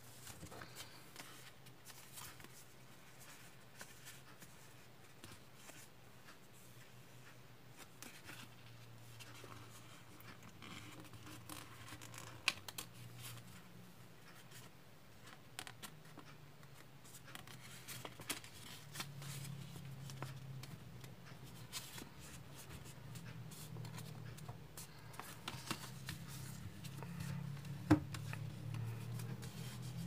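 Square origami paper being folded and creased by hand: soft rustling and crinkling with a few sharp clicks, the loudest near the end. A faint low hum runs underneath and grows louder in the second half.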